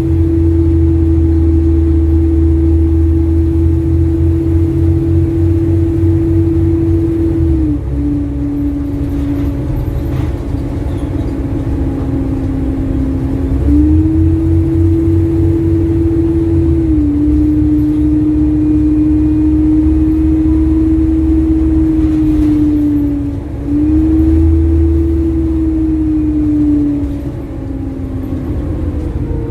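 Bus engine and driveline heard on board while under way, a steady whining drone that drops and rises in pitch several times as the bus changes gear and eases on and off the throttle, over a low pulsing rumble. The rapid ticking of a blown exhaust manifold is mixed in with the engine's running.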